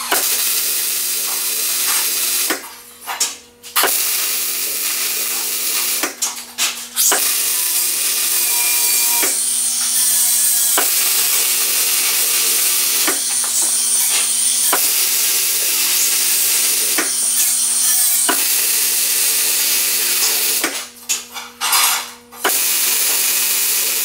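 Electric arc welding on a steel rack: a steady crackling hiss in several runs, each stopping for a second or two before the next weld starts.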